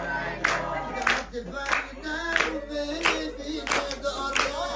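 A folk song sung by the gathering, with hand-clapping in time, about one and a half claps a second. The beat is struck on a metal serving tray played as a drum.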